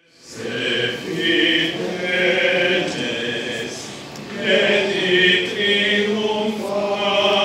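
A small choir of male voices singing a Christmas carol together in sustained notes, with a brief break between phrases about four seconds in.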